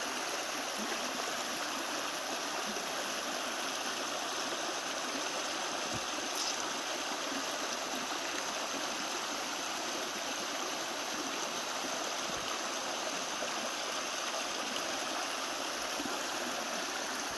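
Small woodland brook running over rocks in shallow riffles: a steady rush of water.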